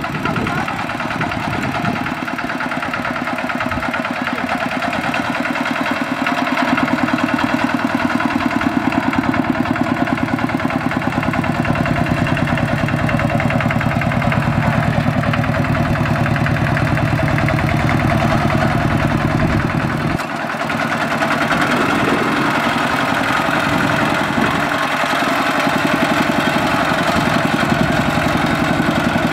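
Single-cylinder diesel engine of a two-wheel walking tractor running under load as it drags a loaded trailer through deep mud, a steady fast chugging. It gets louder a few seconds in, drops briefly about two-thirds of the way through, then picks up again.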